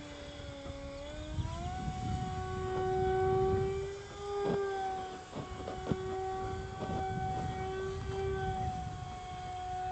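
Motor and propeller of a small foam plank RC plane whining overhead at part throttle, a steady tone that steps up in pitch about a second and a half in and then holds, with low wind rumble on the microphone.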